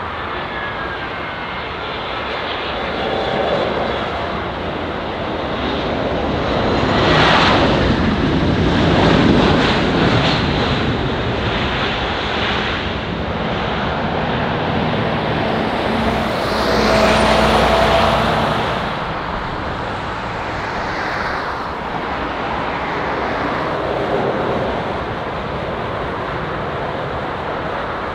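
Jet airliner engine noise on a landing, swelling as the aircraft passes. The noise rises to two peaks, about a quarter of the way in and again about two thirds of the way through.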